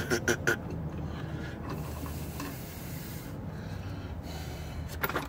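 Metal lathe spindle and faceplate being turned by hand, giving a steady rubbing, rasping sound with a few light clicks near the start and again near the end.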